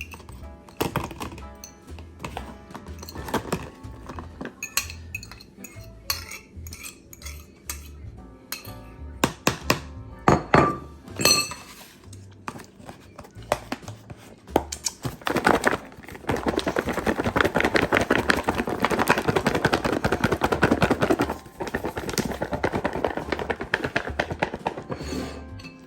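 Cutlery and dishes clinking, scattered at first, then about two-thirds of the way in a few seconds of fast, continuous clattering and scraping, over background music.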